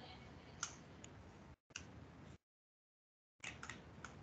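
Near silence with a few faint computer mouse clicks, about half a second in, near two seconds in and a small cluster near the end; in between, the sound cuts out completely twice.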